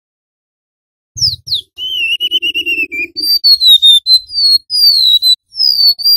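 Golden-bellied gerygone (remetuk laut) singing. After about a second of silence come two quick falling whistles, then a wavering, trilled note, then a run of clear high whistles, each sliding down in pitch.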